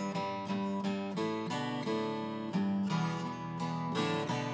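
Martin D12-20 twelve-string acoustic guitar playing an instrumental passage: chords played in a steady rhythm of about four strokes a second, changing chord every second or so.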